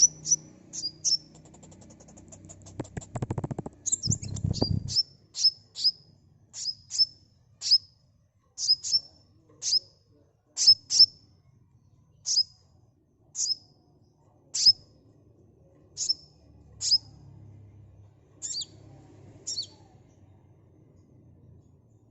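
Sunbird calling: sharp, high chirps that sweep downward, repeated about once a second, with a fast trill of rapid notes about two seconds in. A low rumbling knock sits under the calls around three to five seconds in.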